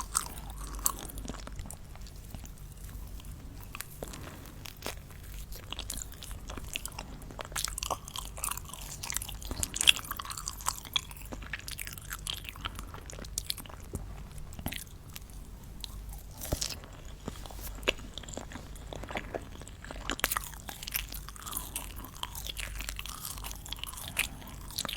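Close-miked crunching and chewing of crisp sweets: irregular sharp crackles and snaps, with one louder snap about ten seconds in.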